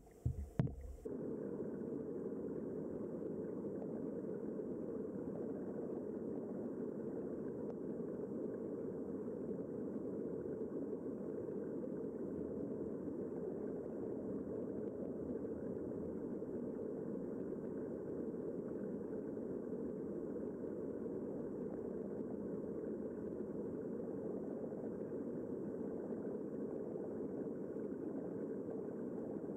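A few knocks in the first second, then a steady low rushing noise of water heard underwater, unchanging throughout.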